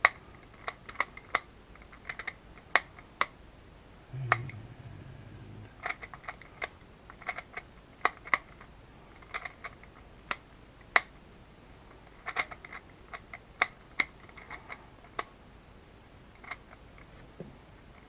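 Custom magnetic Rubik's Clock being worked in a speed solve: irregular sharp clicks as its pins are pushed and its dials turned, the magnetic pins snapping to one side or the other. A short low hum about four seconds in.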